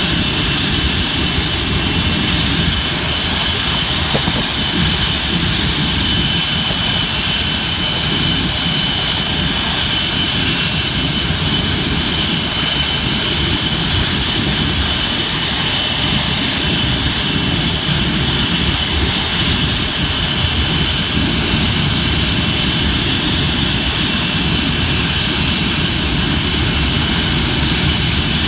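Panavia Tornado GR4's Rolls-Royce Turbo-Union RB199 turbofan jet engines running steadily on the ground, a loud rumble under a high, steady whine.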